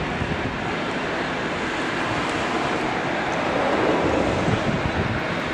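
Airbus A380's four turbofan jet engines at takeoff thrust during the takeoff roll: a loud, steady rush of jet noise, swelling slightly about two thirds of the way in.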